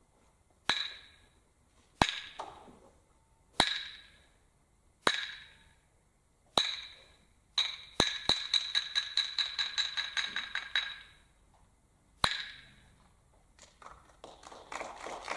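Hyoshigi, wooden clappers, struck to open a kamishibai: half a dozen slow, evenly spaced sharp clacks, then a fast roll of clacks for about three seconds, then one last clack. A softer rustling patter starts near the end.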